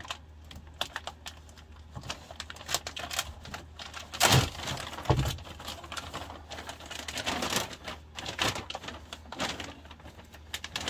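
Clear plastic parts bags crinkling and crackling as chainsaw fuel tank/handle assemblies are unwrapped by hand, with two louder bumps a little after four and five seconds in.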